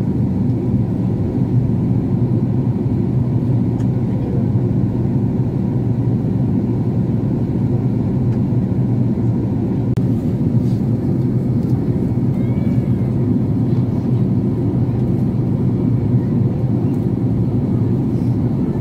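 Steady cabin noise inside a jet airliner in flight: an even, low hum of the engines and rushing air.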